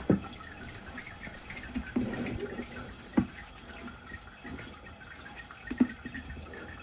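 Gloved hand wiping the inside of an empty plastic wash bin with a paper towel: soft rubbing and rustling, with three light knocks on the plastic, the first right at the start, one about three seconds in and one near the end.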